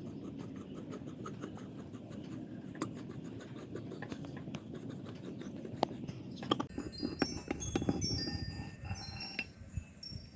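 Steady scraping with evenly spaced faint ticks, then, about two-thirds of the way through, metal pieces knocking together and giving short, high, clear rings.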